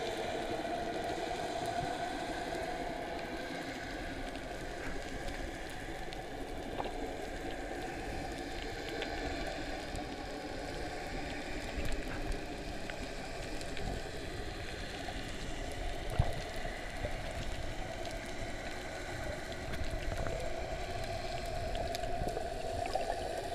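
Underwater ambient noise picked up by a camera in its waterproof housing: a steady low rush with many faint scattered clicks and crackles, and a couple of louder knocks about 12 and 16 seconds in.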